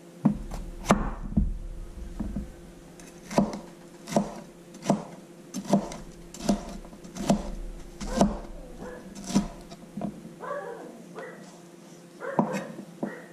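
Chef's knife chopping green bell pepper on a wooden cutting board: slow, irregular knocks of the blade striking the board, roughly one a second.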